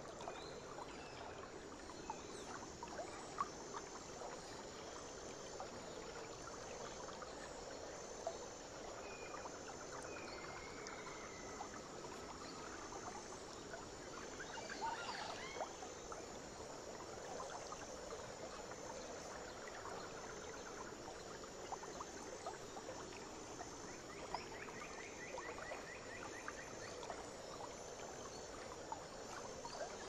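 Faint nature ambience: a steady rush of running water with scattered faint chirps, a high insect-like pulsing that repeats about once a second, and a short rapid trill near the end.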